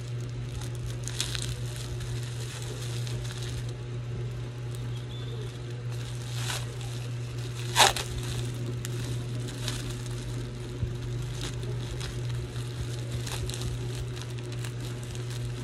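Clear plastic wrapping crinkling and tearing as it is snipped and pulled open with scissors, with one sharp, loud crackle about eight seconds in. A steady low hum runs underneath.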